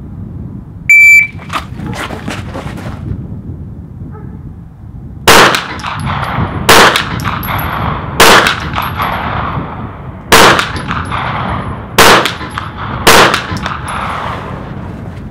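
A shot timer's start beep about a second in. Then six pistol shots, the first about four seconds after the beep and the rest one to two seconds apart: a timed string of three shots on each of two targets.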